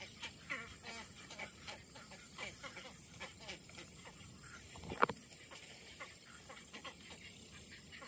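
White ibises calling in a nesting colony: many short calls overlapping in quick, irregular succession, with one sharp, louder sound about five seconds in.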